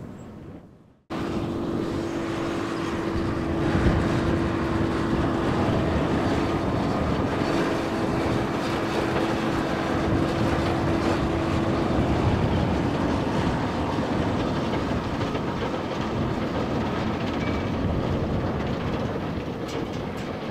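Jet airliner on landing approach: a loud, steady rushing engine noise with a constant hum through the first half. It starts abruptly about a second in, after a brief silence.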